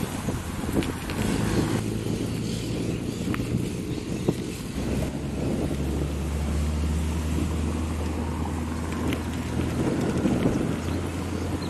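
Wind buffeting the microphone in a low, uneven rumble, with street traffic underneath.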